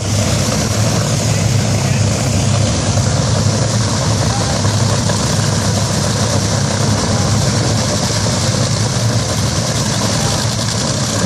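Drag racing cars' engines idling loudly and steadily at the starting line, a deep even drone with no revving.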